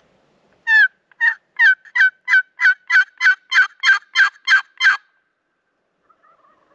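Turkey call sounding a series of about a dozen loud hen yelps, evenly paced at about three a second, each note breaking downward, ending about five seconds in.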